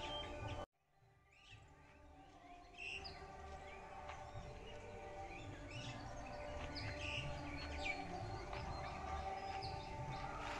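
Birds chirping in short scattered calls over a steady low drone. The sound cuts out abruptly less than a second in, then fades back up.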